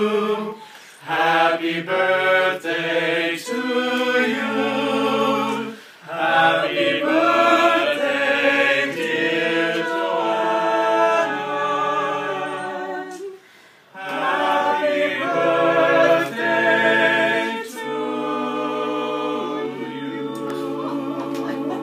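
A small group of men's and women's voices singing a cappella in several-part harmony, in sustained phrases with short breaths between them.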